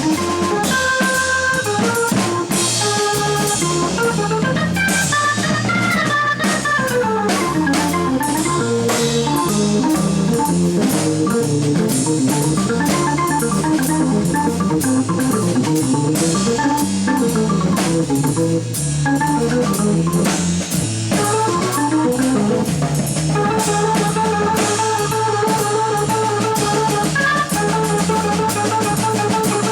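Live jazz played by an organ trio: organ over a drum kit, with a falling run of notes about six seconds in and a repeated riff near the end.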